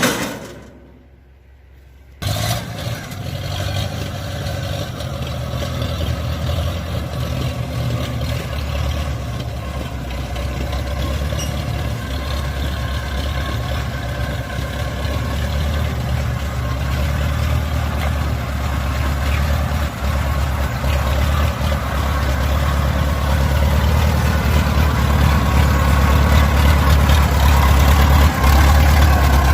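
Kubota DC-70 Plus combine harvester's diesel engine running steadily, cutting in abruptly about two seconds in and growing gradually louder.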